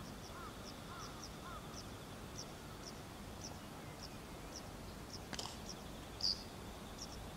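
Small birds chirping: a run of short, high chirps a couple of times a second throughout, with a few lower arching calls in the first two seconds and one louder chirp a little after six seconds in.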